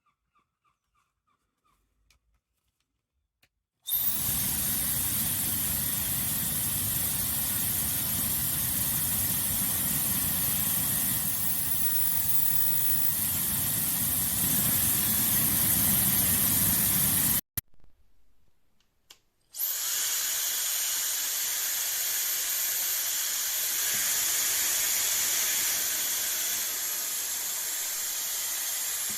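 High-speed ionic hair dryer with a 110,000 RPM motor, switched on after a few seconds of near silence and running steadily: a rushing blast of air with a high whine. It cuts off suddenly about two-thirds of the way through, then is switched on again a couple of seconds later and runs with less low rumble.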